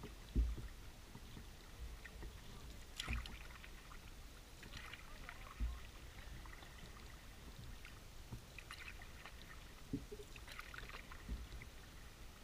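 Kayak paddling: water dripping and splashing off the paddle blades, with a soft low thump from each stroke about every two and a half seconds.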